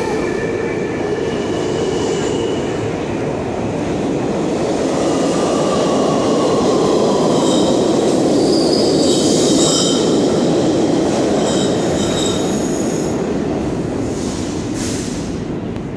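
New York City subway trains moving through the station: a loud, continuous rumble of steel wheels on the rails with high-pitched wheel squeals and a slowly falling whine. The noise is loudest about halfway through and eases off near the end.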